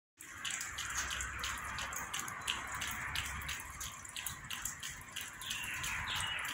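Birds chirping in an aviary: a quick run of short, high chirps, about two to three a second, some falling in pitch near the end, over a steady hiss.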